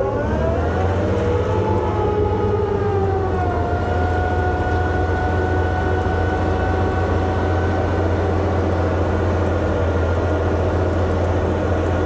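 Bulldozer's diesel engine working steadily under load while pushing a pile of chicken litter: a loud low drone with a high whine over it. The whine rises over the first second and settles a little lower about three and a half seconds in.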